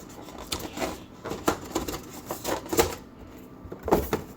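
Cardboard box and paper packaging being handled and set down: a string of short knocks, taps and rustles.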